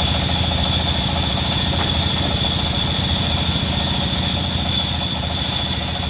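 Large sawmill band saw running between cuts, a steady rhythmic mechanical drone from the machine and its belt drive.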